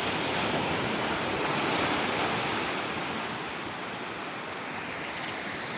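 Sea surf washing onto a beach, a steady rush of breaking waves that swells about two seconds in and then eases.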